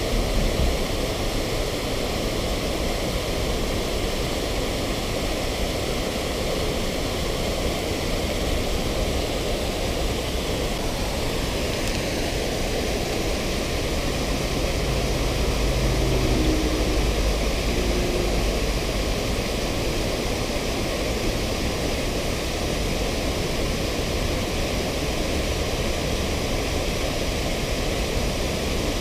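Steady rush of river water pouring over a low concrete weir and churning into white water below it.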